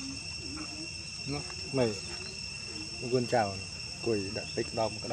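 Steady high-pitched insect drone throughout. From about a second and a half in, a voice gives several short calls, each falling steeply in pitch; these are the loudest sounds.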